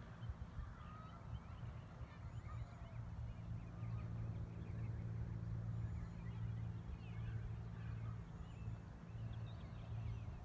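Faint, steady low drone of a Cessna 210 single-engine propeller plane flying high overhead, with birds chirping throughout.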